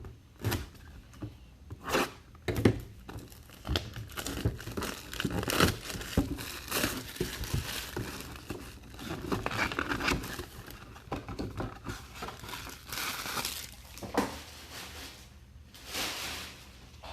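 Packaging of a TriStar mini helmet box crinkling and tearing as it is unwrapped and opened by hand, with many small knocks and rustles, and longer tearing sounds about thirteen and sixteen seconds in.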